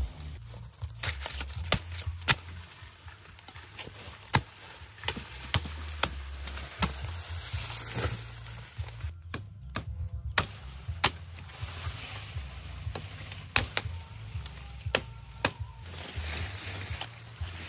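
A large knife chopping through sugarcane stalks at their base, a string of sharp cracks at irregular intervals.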